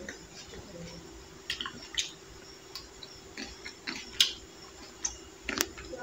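Someone eating grapes: faint chewing and a few scattered mouth clicks, over a faint steady hum.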